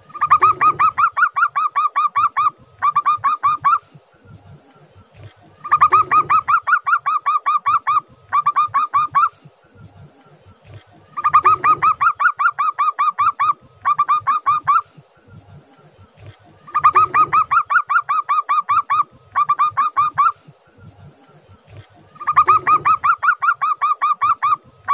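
Zebra dove (perkutut) in full song, repeating its staccato cooing phrase five times about five and a half seconds apart. Each phrase is a fast run of clipped coos about two seconds long, then a brief break and a shorter run of about a second.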